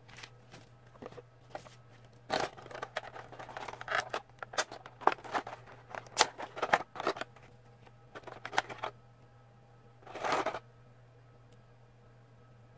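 Handling noises from a toy figure and its packaging: a run of irregular clicks and rustles from about two seconds in until about nine seconds, then one short rustle near ten seconds.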